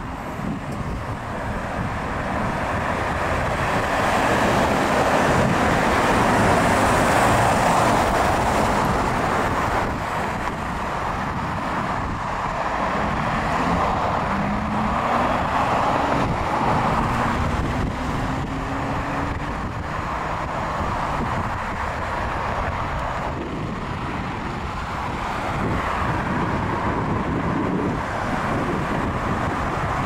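Road traffic: cars passing on a multi-lane road, a steady rush of tyres and engines that swells as vehicles go by. Near the middle, one engine rises in pitch as a vehicle accelerates away.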